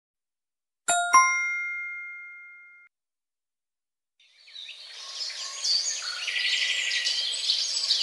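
Two quick struck chime notes about a second in, ringing and fading away over about two seconds. After a short silence, a chorus of birds chirping and calling fades in about four seconds in.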